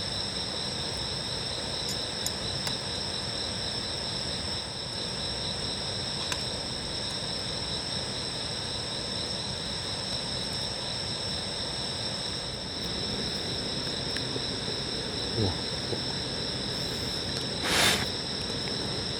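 Steady chorus of crickets and other insects, a continuous high-pitched trill layered in several bands. A few faint clicks, and a brief rush of noise near the end.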